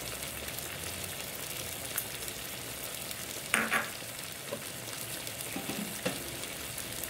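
Tamarind fish broth at a hard boil in a nonstick pan: a steady bubbling hiss, with two sharp clicks a little past halfway.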